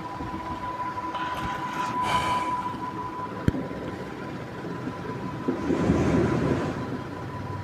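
A whiteboard duster rubbing across the board for about a second, a single sharp click a little later, then a marker writing on the whiteboard. A steady thin whine runs underneath.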